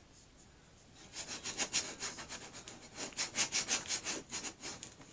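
A plastic scraper rubbed quickly back and forth over transfer tape to burnish a vinyl decal, a run of scratchy strokes about four a second that starts about a second in.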